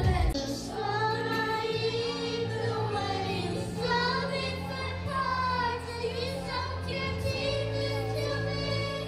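A girl singing a melody into a microphone over steady instrumental accompaniment, amplified through PA speakers in a large hall.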